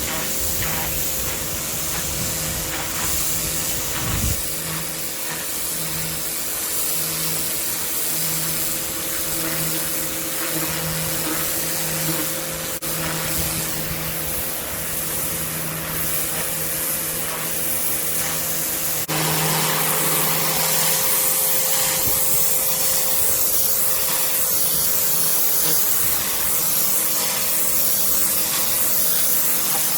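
Kärcher K7 electric pressure washer running, its jet spraying onto patio paving as a steady hiss over the hum of the pump motor. About two-thirds of the way through, the spray gets suddenly louder and stays that way.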